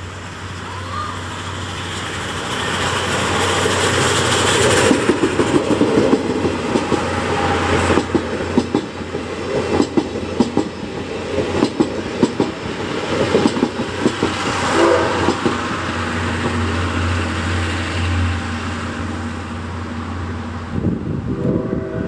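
Steam locomotive C61 20, a Hudson-type express engine, passing close by with its train of passenger coaches. The sound grows louder over the first few seconds as the engine approaches, then the coaches' wheels clatter steadily over the rail joints as they roll past.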